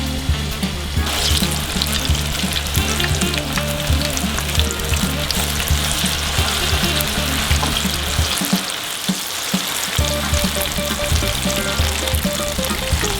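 Pakora batter deep-frying in hot oil: a dense, steady crackling sizzle that grows louder about a second in.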